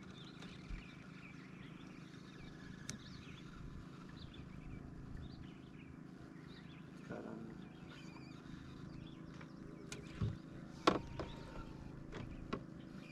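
A few sharp knocks and clicks, the loudest about eleven seconds in, from the landing net and gear being handled on a boat deck, over a low background with faint high chirps.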